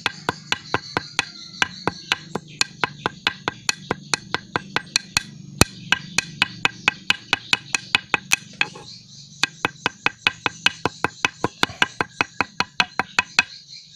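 Fresh herbal leaves being pounded to a pulp to press out their juice: steady, even strikes at about three a second, with one short pause about nine seconds in, stopping just before the end.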